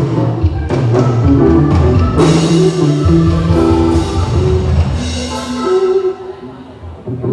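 A live band playing amplified music through a PA, with drum hits, low bass notes and guitar. The band eases off and goes quieter about six seconds in.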